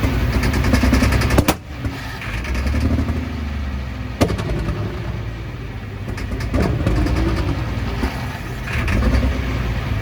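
Super stock diesel pulling tractor engine being forced to fire on ether, running rough with sharp bangs about a second and a half, four and six and a half seconds in. Its injection pump is stuck open, and it cannot start without heavy doses of ether.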